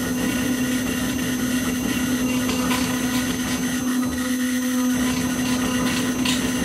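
Onefinity Elite Foreman CNC router's spindle running with a steady whine while a small bit cuts into wood, over an even rush of cutting noise.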